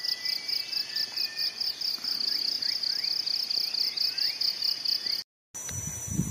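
Insects chirring in a fast, even pulse, with faint short rising whistles behind. About five seconds in the pulsing cuts off and gives way to a steady high hiss with low knocks.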